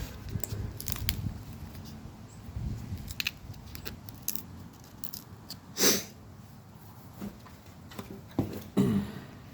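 Hands working on an armrest, peeling its upholstered pad off the metal frame: scattered rustles and small clicks, with a louder knock about six seconds in and another near the end.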